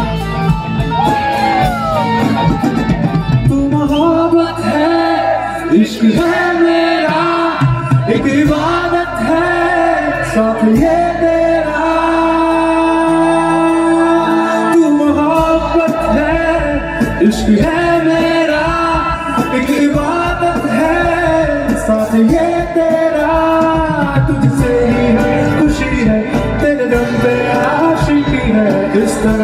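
A male singer performing a Hindi romantic ballad live with a band of guitar, keyboard and drums, all amplified through a stage sound system.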